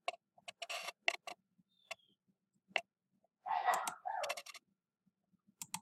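Computer mouse clicking: short, sharp clicks scattered irregularly, with a brief louder rustling noise around four seconds in.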